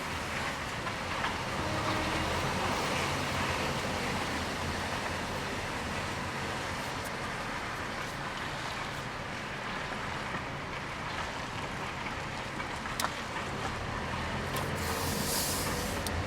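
A vehicle engine running steadily: a low, even hum under a noisy wash, with a brief hiss near the end.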